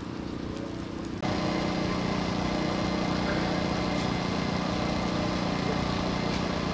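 An engine running steadily with a low, even hum. About a second in, the sound jumps suddenly louder and noisier and stays that way.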